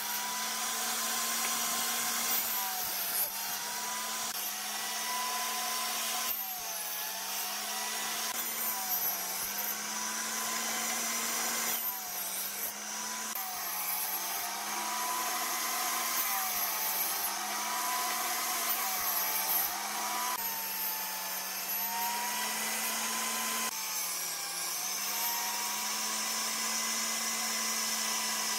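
Table saw running steadily. Its motor pitch dips briefly each time the blade bites into a wooden block to cut a kerf, about every one and a half to three seconds, and recovers between cuts.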